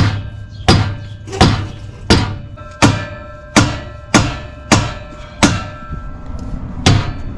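A mallet hammering on a car's exhaust mid pipe, about ten steady blows roughly one every 0.7 s, each leaving a short metallic ring, with a slightly longer pause before the last one. The blows are driving the stuck pipe loose from its joint.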